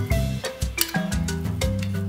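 Upbeat background music: a melody of short struck notes over a bass line, with a steady beat.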